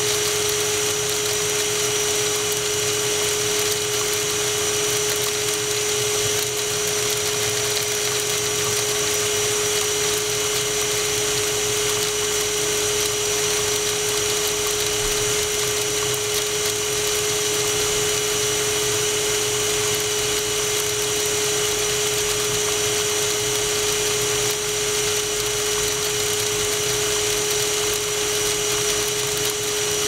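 Handheld cyclonic vacuum cleaner running steadily: an even rush of air with a constant motor hum and a faint high whine over it, no change in speed.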